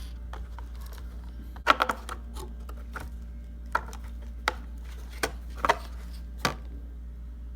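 Scattered sharp plastic clicks and knocks from a hobby RC car being handled with its body shell off, the loudest a quick cluster about two seconds in, with single knocks following every second or so.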